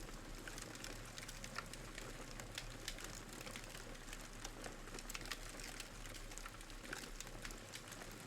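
Fire crackling faintly: a soft steady hiss with frequent small, sharp, irregular pops.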